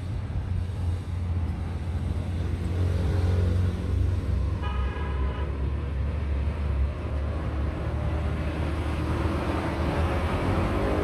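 Steady low rumble of road traffic, with a vehicle horn sounding once, briefly, about five seconds in. Music starts to come in near the end.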